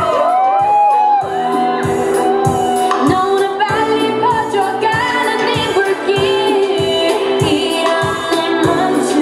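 K-pop dance track: a pop song with singing over a steady, punchy beat.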